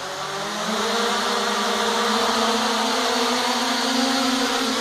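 Small quadcopter's electric motors and propellers spinning up, rising in pitch over about the first second, then a steady buzz as it lifts off and hovers.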